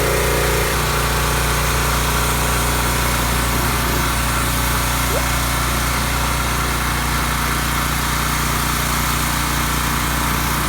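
Generac 3100 psi gas pressure washer running steadily on its small engine, with a slight shift in its note about a second in.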